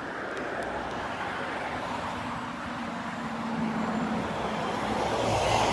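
A motor vehicle driving by on the street, its noise building to a peak near the end.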